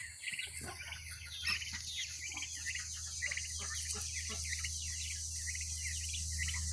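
A flock of young poultry peeping and chirping continuously, many short high calls overlapping, over a steady low hum.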